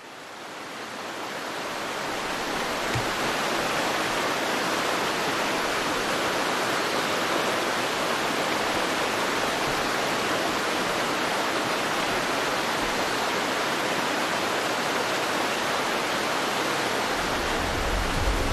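Mountain stream rushing over rocks: a steady wash of water noise that fades in over the first few seconds.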